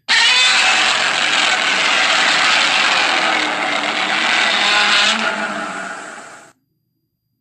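Godzilla's roar sound effect from the 1954–1955 films: a long, loud screech that starts abruptly, holds for about five seconds, then fades and cuts off into silence. The roar was made by dragging a resin-coated leather glove along the strings of a double bass and slowing the recording down.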